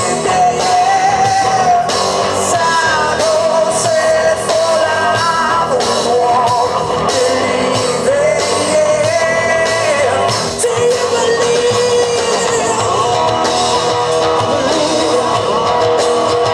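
Live rock band playing loud: electric guitar, bass guitar and drum kit, with a lead voice singing long held, wavering notes over the top.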